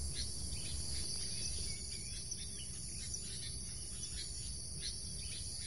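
Steady, high-pitched insect chorus, with faint short chirps scattered through it.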